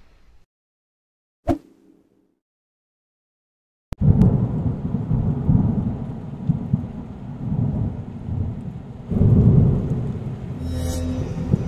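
Thunderstorm sound effect. A short sharp hit comes about a second and a half in, then after a silent pause a sudden thunderclap about four seconds in rolls into a long, low rumble with rain, swelling again near the end.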